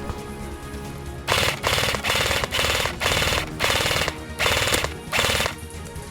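Airsoft L86-style light support gun firing full-auto in about seven short bursts, each a rapid mechanical rattle of shots, starting a little over a second in and stopping about a second before the end.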